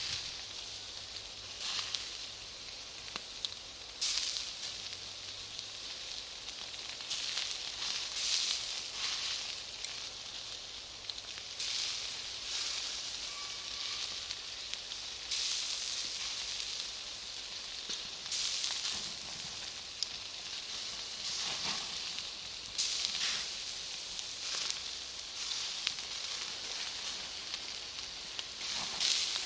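Charcoal and wood fire hissing and crackling, with sharp pops every few seconds from the burning cut charcoal.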